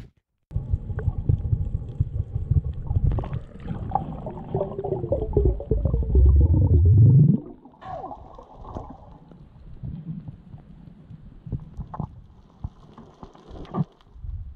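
Muffled underwater rumbling and gurgling of water around a diver swimming over a reef, heard through a camera's waterproof housing. It is loud for about the first seven seconds, then drops to a quieter rumble with scattered clicks.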